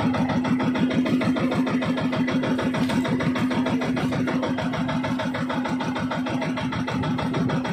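Motorized outrigger boat's engine running steadily, a fast even beat with no change in speed.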